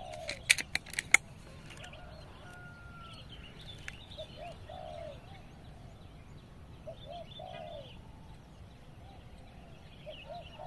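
Doves cooing in soft, repeated rising-and-falling calls, with the thin whistles of other birds among them. A few sharp clicks about half a second to a second in are the loudest sounds.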